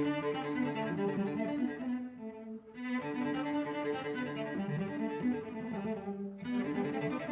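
Background music: a bowed-string piece with cello and violin playing a melodic line, which cuts off abruptly at the end.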